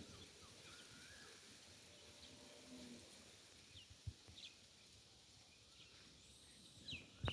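Near-quiet ambience with a few faint, scattered bird chirps and a soft knock about four seconds in; chirping thickens near the end.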